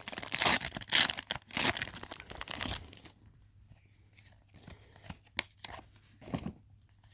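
Foil Pokémon booster pack wrapper being torn open and crinkled, in loud crackling bursts over the first three seconds, then only a few faint rustles and clicks.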